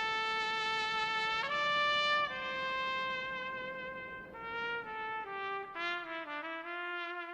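Background music: a single instrument playing a slow melody of long held notes.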